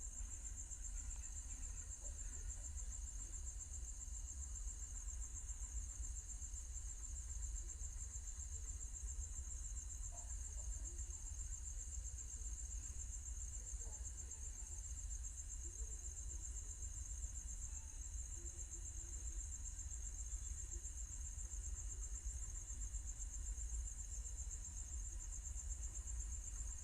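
A steady, high-pitched trill with a fine pulsing texture, over a constant low hum.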